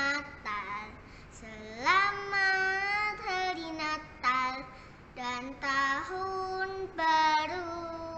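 A young girl singing alone without accompaniment, in phrases with long held notes and short pauses between them.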